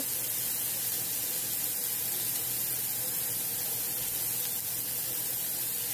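Hamburger patty sizzling steadily on a hot griddle, an even hiss.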